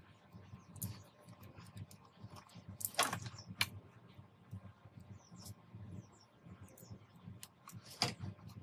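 Scattered light clicks and taps of small parts and tools being handled, with a few sharper knocks about three seconds in and near the end.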